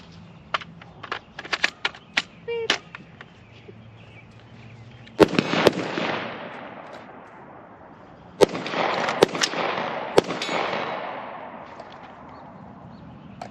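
Rifle shots on an outdoor range: two quick shots about five seconds in, then three more a few seconds later, each group trailing off in a long rolling echo. Before them come a handful of small metallic clicks and clanks of gun handling.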